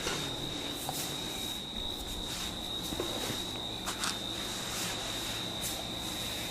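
Hands brushing and rubbing over hair and skin during a head massage, soft scratchy strokes every second or so, over a steady high-pitched whine.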